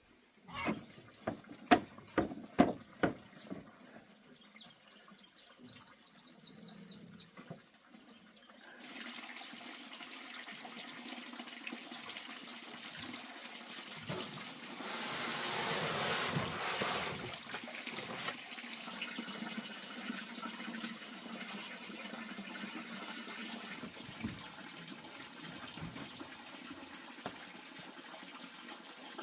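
Several sharp knocks and a short high trill, then from about nine seconds in a steady rush of running or pouring water that swells louder for a few seconds in the middle.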